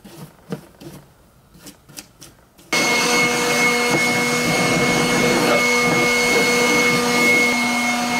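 Light clicks and knocks of plastic parts being handled. About three seconds in, a loud, steady machine drone with a constant whine sets in abruptly and carries on.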